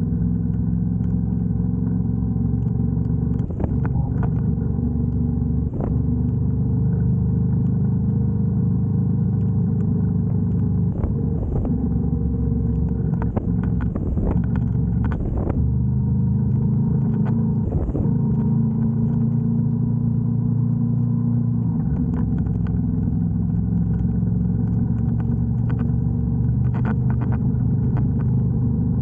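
Moto Guzzi V85TT's air-cooled transverse V-twin engine running steadily under way, its note shifting a little now and then. Scattered sharp knocks come through over it.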